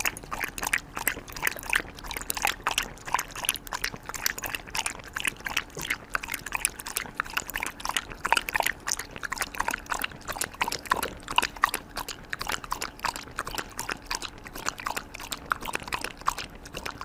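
A corgi lapping water from a bowl: a quick, steady run of wet laps.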